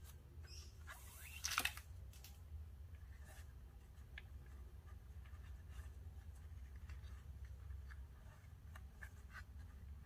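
Nylon 550 paracord rustling and sliding through the fingers as it is threaded and pulled tight into a knot, with a louder swish about one and a half seconds in and scattered light clicks and scrapes after. A low steady hum runs underneath.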